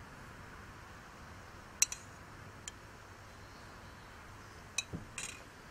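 A metal spoon clicking against a metal baking pan and a small cup while rum is spooned over pineapple slices: a few sharp clicks, the loudest a little under two seconds in, and a quick cluster near the end.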